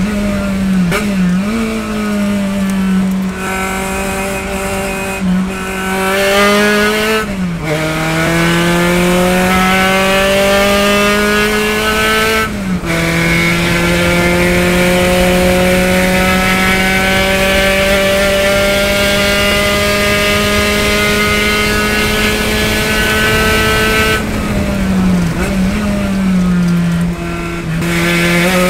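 Spec Racer Ford's four-cylinder race engine heard from the cockpit at high revs. It drops in pitch at two gear changes, then pulls up steadily through a long stretch at full throttle. Near the end the revs waver and dip as the car brakes and downshifts for a corner.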